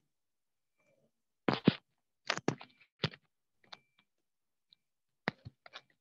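Irregular clicks and light knocks of a computer mouse and keyboard being worked, about a dozen short separate strokes, the loudest pair about one and a half seconds in and another cluster near the end.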